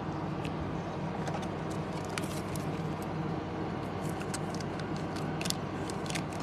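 Light, scattered clicks and ticks of plastic card sleeves and trading cards being handled, as a card is slid into a sleeve, over a steady low background hum.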